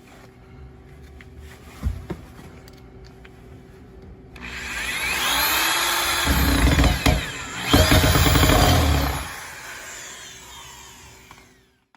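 Electric drill with a Phillips bit driving a screw into plywood. The motor spins up about four seconds in and runs in two hard stretches as the screw bites, then winds down. A single knock comes near the start.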